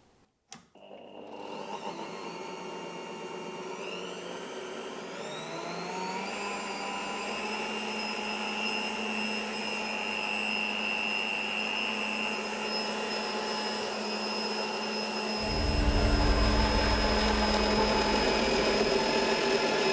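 Bosch PBD 40 bench drill press switched on about a second in, its motor whine rising in pitch as it spins up and then running steadily at 450 rpm. About 15 seconds in, a 13 mm twist bit starts cutting into 2 cm steel, adding a loud low rumble.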